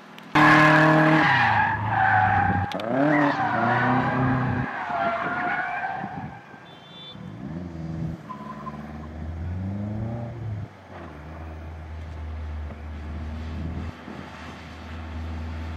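Nissan 240SX (S14) drift car sliding under power, its engine revving hard up and down with tyre squeal, loudest in the first few seconds. Later a drifting car's lower, steadier engine note takes over.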